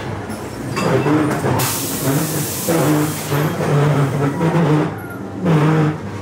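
Ghost train ride car running through a dark ride, with a low pitched sound pulsing on and off. A loud hiss of air lasting about a second starts about a second and a half in.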